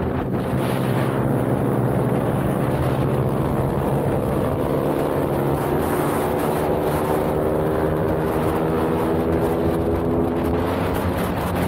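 Pitbike's single-cylinder four-stroke engine running hard at high revs, its pitch climbing steadily over several seconds as the bike accelerates.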